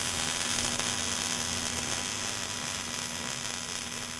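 Electric arc welding on steel: the arc hisses steadily, with a low, even hum under it.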